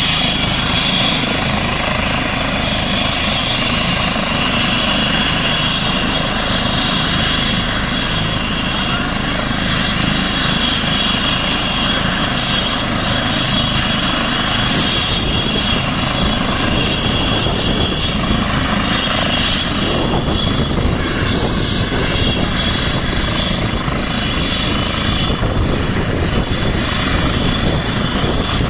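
Eurocopter EC135 air ambulance helicopter running on the ground with its rotors turning: a steady, loud rush of rotor and engine noise with a high turbine whine.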